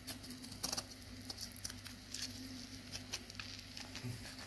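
Steel spoon scraping and clicking against the inside of a coconut shell, prying a fried egg loose from it; faint, irregular small clicks. The egg is sticking to the shell and is slow to come free.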